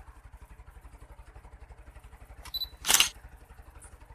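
Smartphone camera shutter sound as a selfie is taken on a Xiaomi Redmi 8A: a short click with a brief high beep about two and a half seconds in, then a loud shutter snap about half a second later. A low steady hum runs underneath.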